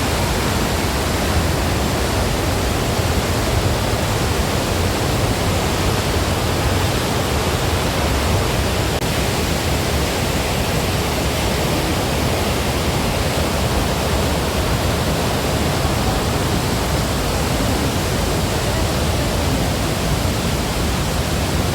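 Waterfall crashing down steadily, a dense even rush of water.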